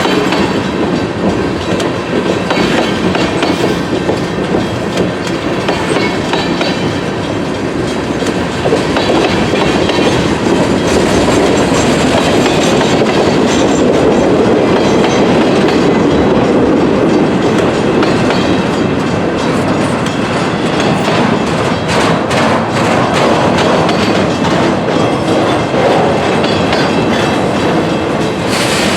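CSX freight train rolling past at close range: a steady, loud rumble of wheels on rail, with wheels clicking over the rail joints, the clicks thickest in the last few seconds.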